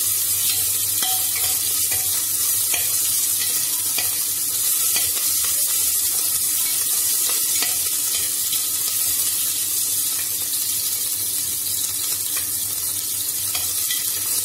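Sliced onions sizzling steadily in hot ghee in an aluminium pressure cooker, with a metal ladle stirring and now and then clicking and scraping against the pot. The onions are being fried to a light golden.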